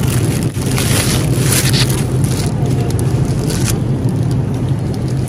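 Steady low hum of a refrigerated produce display, with faint crinkling of plastic wrap as bagged napa cabbage is handled.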